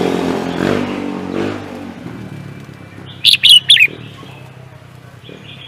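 A songbird gives a quick phrase of four loud, sharp notes, each sliding down in pitch, about three seconds in. Beneath it, a passing vehicle's engine fades away over the first two seconds.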